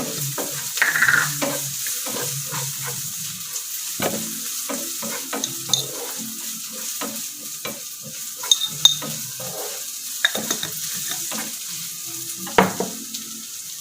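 Onions and spice powders sizzling as they fry in a non-stick pan, stirred with a utensil that scrapes and clicks against the pan again and again, with a few sharper knocks near the end.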